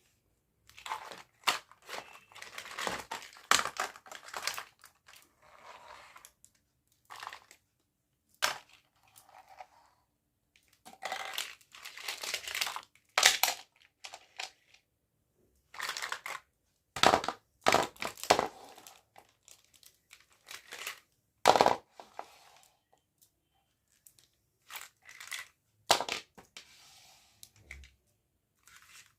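Toy packaging being crinkled and torn open by hand, in irregular bursts with short silences between.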